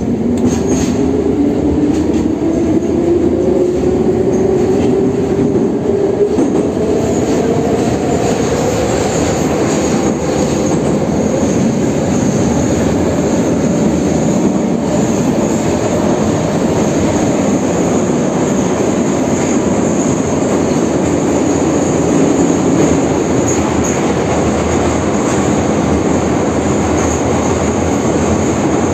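81-717-series metro train accelerating away from a station: the traction-motor whine rises in pitch over the first eight seconds or so, then settles into a steady running rumble of wheels on rail. A thin high tone holds throughout.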